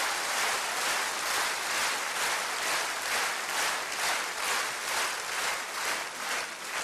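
Large theatre audience applauding, the clapping falling into a steady rhythmic beat of about two to three claps a second.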